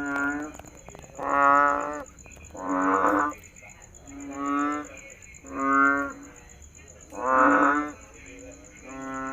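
Frog giving low, drawn-out calls over and over, about one every second and a half, seven in all, with a steady high-pitched whine behind them.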